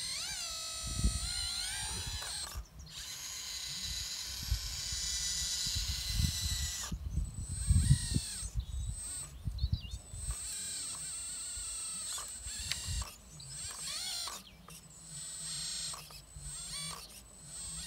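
Hydraulic RC excavator working: its pump and motors whine, sliding up and down in pitch as the boom and bucket move, with low thuds and scraping from the dirt, heaviest midway.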